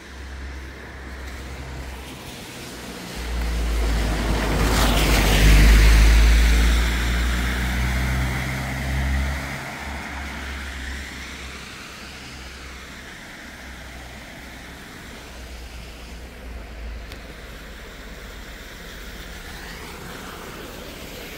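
A car passing through floodwater: its engine rumble swells from about three seconds in, with a loud rushing splash of water at its peak around five to six seconds, then fades away by about ten seconds. A steady wash of moving water follows, with a second, fainter vehicle swish near the end.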